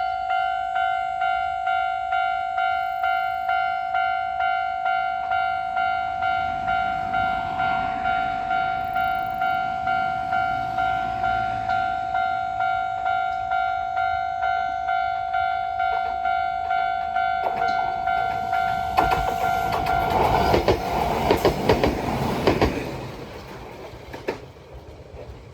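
Railway level-crossing alarm ringing about twice a second, one steady clanging tone, as an Iga Railway train approaches and passes with its wheels clattering over the rail joints. The alarm cuts off about twenty seconds in while the train is still going over the crossing, the early stop this type-3 crossing is known for; the train sound then fades away.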